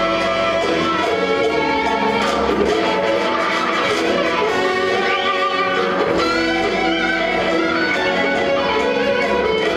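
Live music from a show choir's accompanying band, a full ensemble playing steadily with a string-like, orchestral sound.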